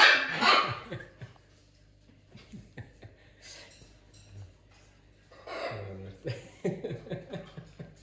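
A man laughing and chuckling in short breathy bursts, loudest at the very start and again in the last two seconds, with quiet rustling and small clicks in between.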